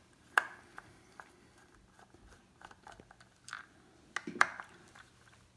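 Phillips screwdriver working the screws out of clear plastic faucet knobs: scattered small clicks and scrapes of the metal tip in the screw heads and of the knobs being handled, the loudest about half a second in and again near four and a half seconds in.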